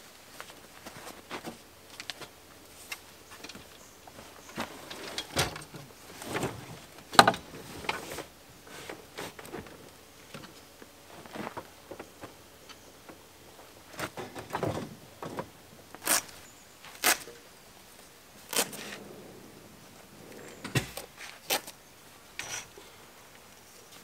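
Irregular knocks, clicks and rattles of camping gear being handled and stowed in the rear drawers and cargo area of a four-wheel drive, with the sharpest knock about seven seconds in.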